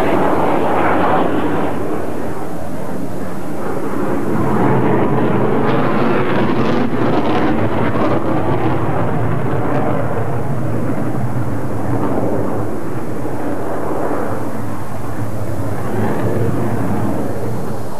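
Jet noise from the British Aerospace EAP fighter's two Rolls-Royce RB199 engines as the aircraft climbs and manoeuvres in flight. It is loud and steady, with a rougher stretch about five to eight seconds in.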